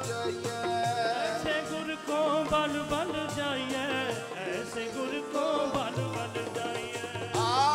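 Sikh devotional kirtan: a man singing a wavering melody over the steady reedy chords of a harmonium, with a hand-played dholak drum keeping the rhythm.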